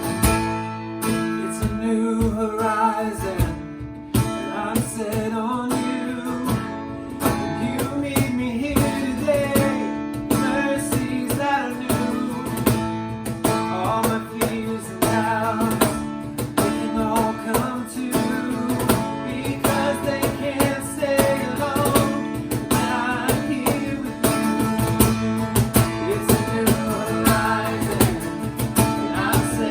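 A worship song played live: strummed acoustic guitar with a singing voice over a steady rhythm.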